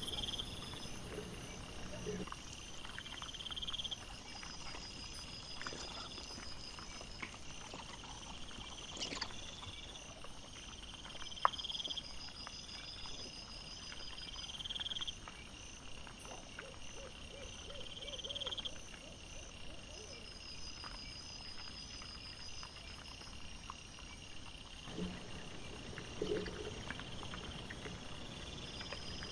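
Night insects chirping in a steady repeating rhythm, over scattered clicks and knocks of wild boar and piglets rooting and feeding, with a few short low grunts near the middle and toward the end.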